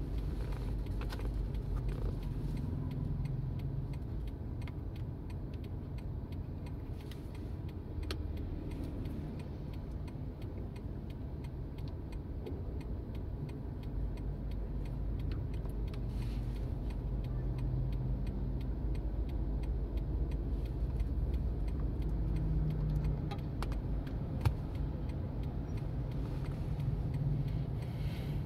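Steady low rumble of passing road traffic, cars and motorbikes, heard from inside a parked car, with scattered faint clicks.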